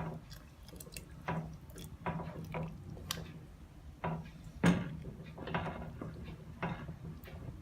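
A spoon stirring a pot of harira soup as the flour-and-water thickener is worked in: irregular knocks and liquid sloshing, the loudest knock about two thirds of the way through, over a steady low hum.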